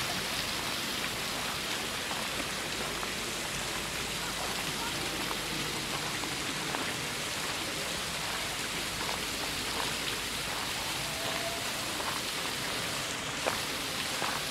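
Water from the Residenzbrunnen, a large baroque fountain, falling and splashing steadily into its basin.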